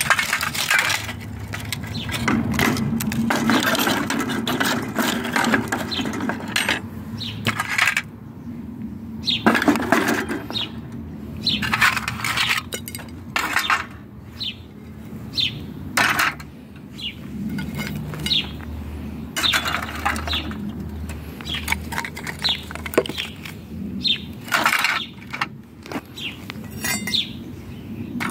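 Rusty scrap metal, pipe and wire being handled and piled onto a plastic tub: irregular clinks, scrapes and rattles, with the odd sharper knock.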